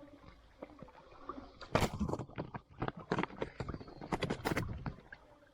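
A run of irregular knocks and clatters, starting about two seconds in and going on for about three seconds, some sharper and louder than others.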